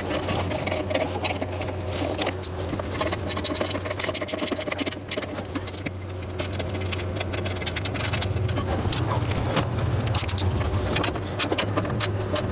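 Hand tools clicking and scraping irregularly against metal over a steady low hum, as parts go back onto a van during a starter replacement.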